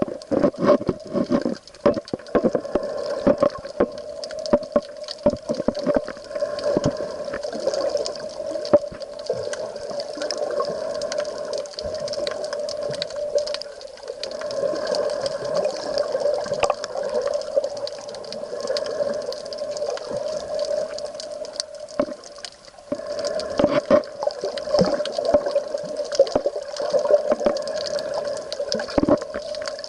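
Seawater sloshing and gurgling around the camera, with a steady hum and many small clicks and knocks throughout.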